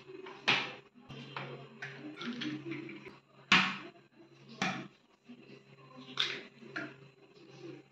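Two eggs being cracked into a small bowl: about five sharp taps of eggshell against a hard edge, spread a second or so apart, with soft shell-handling noise between.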